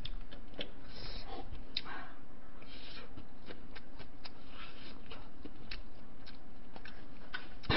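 Scattered small clicks and brief rustles of wooden chopsticks working noodles in a paper cup.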